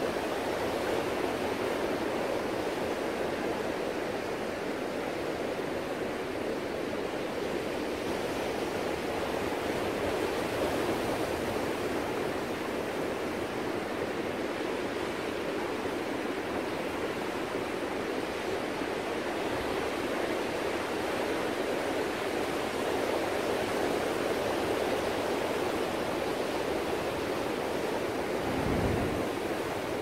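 Ocean surf making a steady rushing wash, with a brief low thump near the end.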